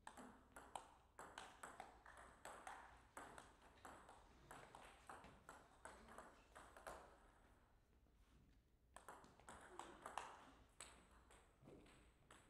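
Table tennis rally: a celluloid-type plastic ball clicking off rubber paddles and bouncing on the table in a quick, irregular series of hits, faint and a few tenths of a second apart. A short lull comes about seven seconds in, then another run of ball clicks follows.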